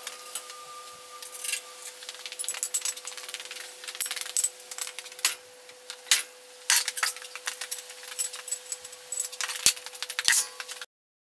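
Repeated sharp metal clinks and knocks from a welded steel bed frame being handled and shifted onto axle stands, over a steady hum. Two heavier thumps come near the end, then the sound cuts off abruptly.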